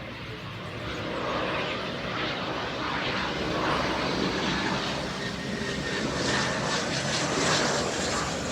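Airplane flying overhead, its engine noise swelling from about a second in and staying loud.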